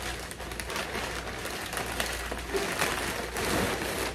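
Plastic mailer bag rustling and crinkling as it is pulled open and plastic-wrapped clothes are pulled out of it.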